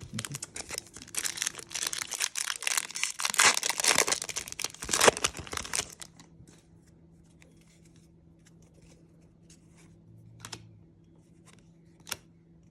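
Foil trading card pack wrapper being torn open and crinkled for about six seconds, then a few faint clicks.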